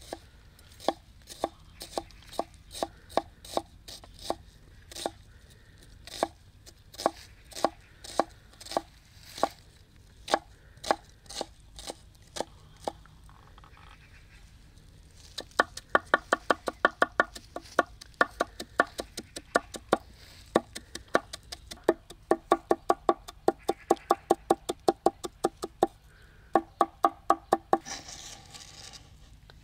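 Kitchen knife chopping on a chopping board. Slow separate cuts, about two a second, for the first half; then, after a short pause, fast rapid chopping in three quick runs.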